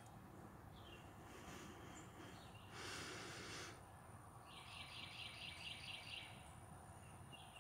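Faint outdoor background noise. About three seconds in comes a brief rush of noise lasting about a second, and a little later a rapid, evenly pulsed trill that lasts about two seconds.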